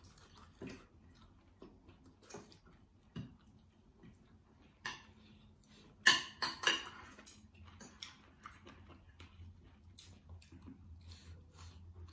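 Metal fork clinking and scraping on a ceramic plate, with scattered small clicks and chewing of people eating; the sharpest clinks come in a quick cluster about six seconds in.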